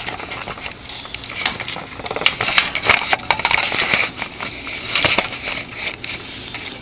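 Irregular crackling, scraping and rustling close to the microphone as the camera is moved about inside a wire rabbit cage among lettuce leaves. It is busiest from about two to five and a half seconds in.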